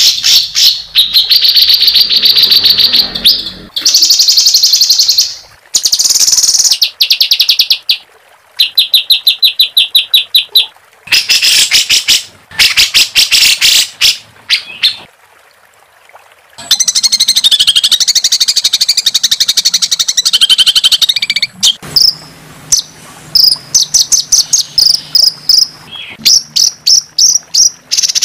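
Loud songbird song made of harsh, rapid rattling trills and fast strings of repeated notes, in phrases a few seconds long with short breaks and one quiet gap of about a second and a half midway.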